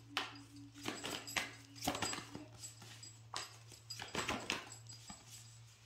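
Oracle cards being shuffled and handled: a string of irregular soft slaps and riffles, about ten strokes, over a faint steady hum.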